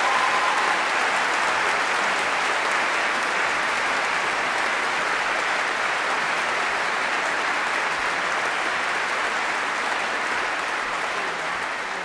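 Audience applauding steadily, easing slightly near the end; a faint held tone dies out within the first second.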